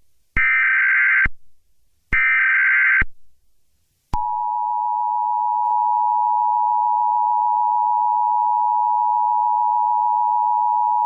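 Emergency Alert System tones: two short bursts of shrill, warbling SAME header data, about a second each with a second's gap, then about four seconds in the two-tone EAS attention signal starts and holds steady. It is the alert signal that comes before a new warning message is read.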